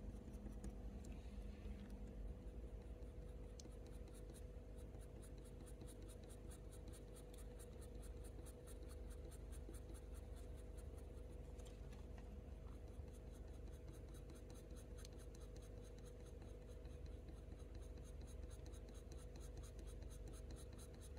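Faber-Castell Polychromos coloured pencil scratching faintly on hot-press watercolour paper, in quick, even, light strokes as it shades fur, with a steady low hum underneath.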